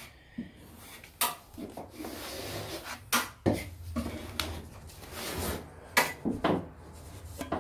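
A steel plastering knife scraping and knocking against plaster scraps and a drop sheet: several short, sharp scrapes and knocks with rubbing in between.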